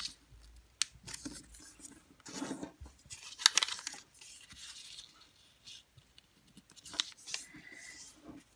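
A sheet of colored origami paper being folded in half one way and then the other and creased down by hand: crisp, irregular rustles and crackles of paper, the sharpest about three and a half seconds in.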